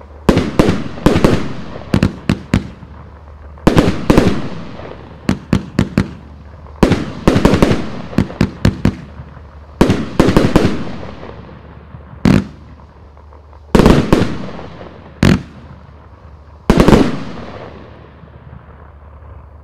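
Riakeo 'Shameless' 101-shot, 30 mm F2 firework compound firing: clusters of sharp shot reports and aerial bursts, each cluster trailing off in a fading hiss. The shots come thick and fast in the first half, then more spaced out, with a lull near the end.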